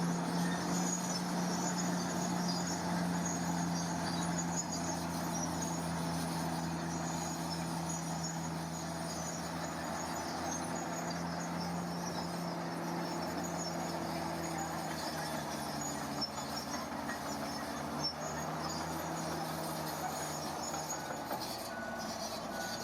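Heavy earthmoving machine's diesel engine running steadily, its pitch dropping slightly about two-thirds of the way through, with insects chirping faintly.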